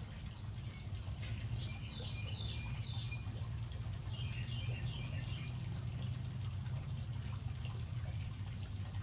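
Small birds chirping in two short twittering bursts, about a second and a half in and again about four seconds in, over a steady low hum.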